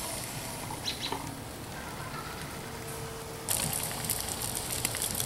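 A few faint clicks, then about three and a half seconds in a sudden start of dense crackling and sizzling: marinated pork chops cooking over a charcoal grill.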